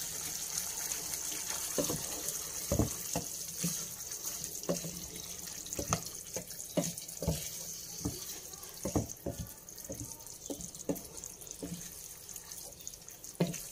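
Tofu and minced pork in sauce simmering in a pan with a steady sizzling hiss, while a wooden spatula moves through it and knocks against the pan in irregular taps.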